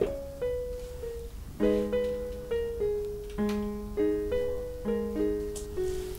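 Background music: a keyboard playing slow chords with a simple melody on top.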